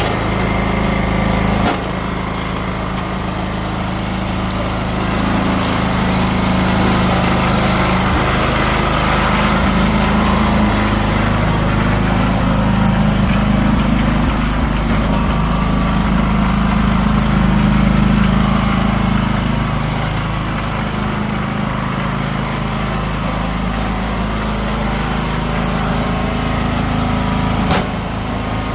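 Sears ST12 garden tractor's small engine running steadily, its note shifting slightly up and down, with a dip in level about two seconds in.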